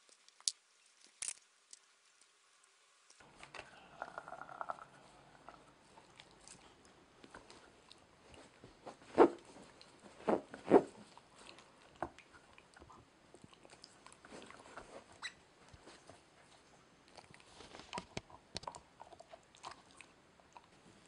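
Dog chewing and gnawing a purple Busy Buddy Waggle rubber chew toy: irregular clicks and crunches of teeth on hard rubber, with three louder bites about halfway through.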